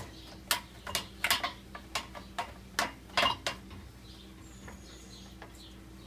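Plastic spray arm of a Bosch dishwasher being twisted counterclockwise back onto its mount to lock it on: a string of light clicks and knocks, stopping about three and a half seconds in.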